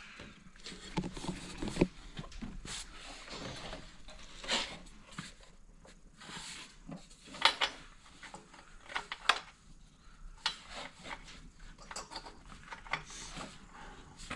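Scattered light clicks and knocks, irregular and a few seconds apart, as small snowmobile parts are lined up and fitted by hand.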